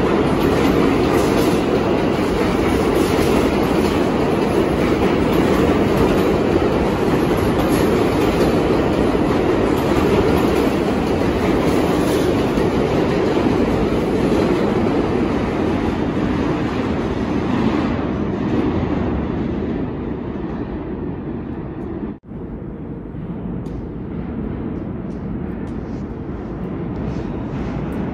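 New York City subway train running through the station: steady wheel-on-rail noise that loses its upper edge and grows duller about two-thirds of the way through. A brief dropout comes a few seconds later, then a lower rumble carries on.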